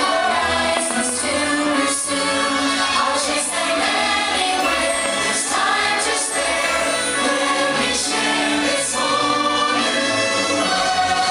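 Fireworks-show soundtrack: a choir singing over orchestral music.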